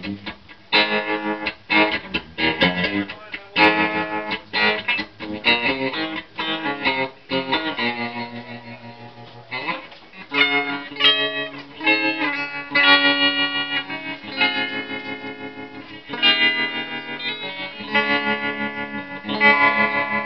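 Electric guitar played through a 1964 Silvertone 1485 tube amplifier head and its six-ten speaker cabinet. It plays short, choppy chords for about the first half, then longer ringing chords.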